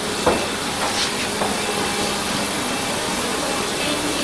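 Steady rushing hiss of airport apron and aircraft noise around a parked airliner at the gate, with one sharp knock about a third of a second in.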